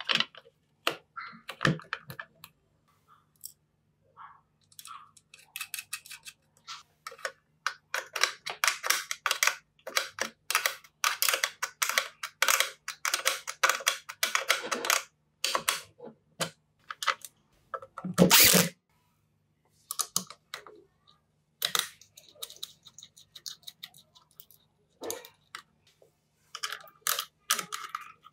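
Workbench handling of tools and small metal parts: scattered sharp clicks and taps, a dense run of rapid clicks through the middle, and one louder knock about eighteen seconds in, over a faint steady hum.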